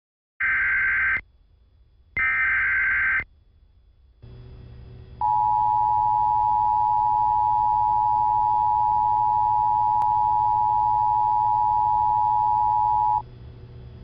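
Emergency Alert System SAME header: two short bursts of data tones, then the EAS attention signal, a steady two-tone alert held for about eight seconds, starting about five seconds in. It announces a flash flood warning.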